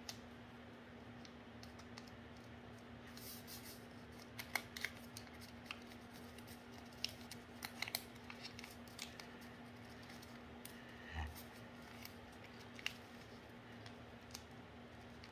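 A square of origami paper being folded and creased by hand against a floor: faint, scattered crinkles, rustles and small taps, busiest in the middle, with one low thud about eleven seconds in. A faint steady hum lies under it.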